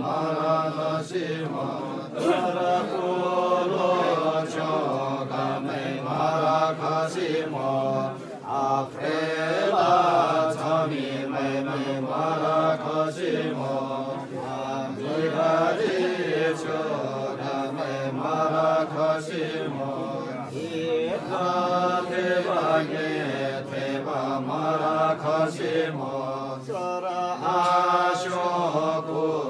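Gurung funeral chant of the Arghau rite: priestly voices reciting in a continuous, repetitive sing-song chant that rises and falls in short phrases without pause.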